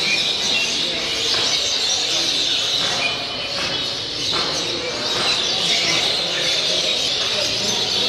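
Dense chorus of many caged birds chirping and twittering at once, a steady din with no single call standing out.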